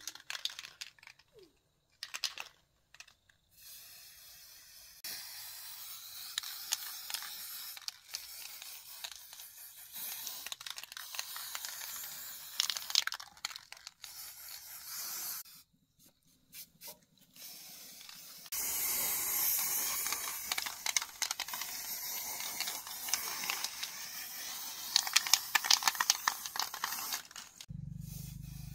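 Aerosol spray can hissing in long bursts with short pauses between them as paint is sprayed on, the longest burst running through the second half.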